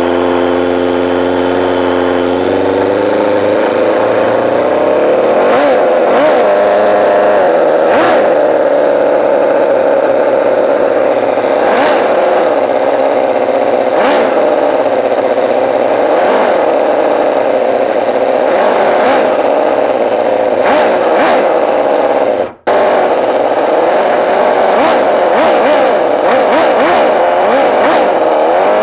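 Toyan FS-L400 four-cylinder four-stroke nitro model engine running, steady for the first couple of seconds, then its speed wavering up and down as the throttle is worked by hand. A brief break cuts the sound about 22 seconds in.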